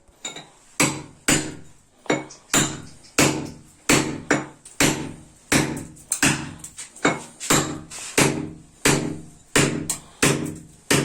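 Steady, repeated hammer blows, about one every two-thirds of a second, each a sharp knock with a short ring, breaking out a cut square of floor tile and mortar to expose a punctured pipe.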